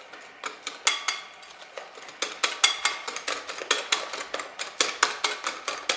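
Wire hand whisk beating egg batter in a glass bowl, its wires clicking and tapping against the glass with a slight ring. The strokes are sparse at first and speed up into a quick, uneven rhythm about two seconds in.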